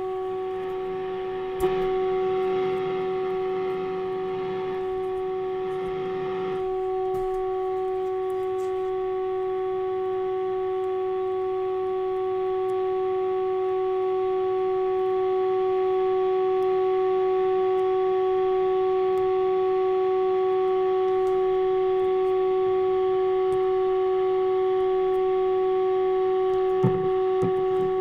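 NordMende Elektra 58 valve radio's loudspeaker giving out the steady test tone of the signal generator's 550 kHz signal while the antenna coil is slid along the ferrite loop stick for the AM alignment. Some hiss lies under the tone for the first few seconds, and the tone grows a little louder partway through.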